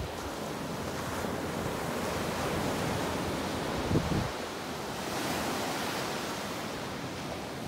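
Ocean surf washing onto a sandy beach: a steady hiss of small breaking waves, with a short low thump about four seconds in.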